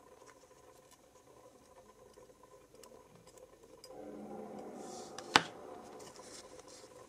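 Steel tweezers setting a cut opal down in a plastic gem box: soft handling noise, then one sharp click about five seconds in as the tweezers come away.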